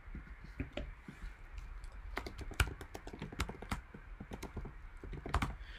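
Typing on a computer keyboard: a run of quick, irregular key clicks that start sparse and grow denser about two seconds in, with a couple of harder keystrokes near the end.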